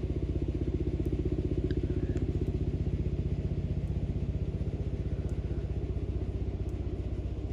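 Helicopter flying in, its rotor beating in a rapid, even, steady pulse.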